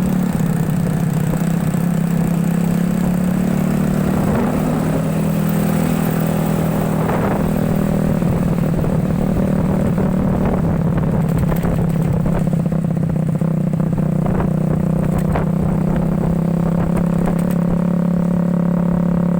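Motorcycle engine of a home-built ATV running at a steady, even pitch, with a few faint knocks.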